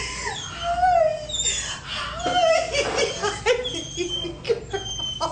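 A dog whining and whimpering in many short, high calls that rise and fall in pitch, with a few yips among them.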